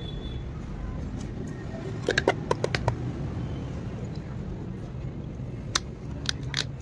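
Light clicks and clinks of hand tools and metal parts being handled, a quick cluster about two seconds in and a few single clicks near the end, over a steady low hum.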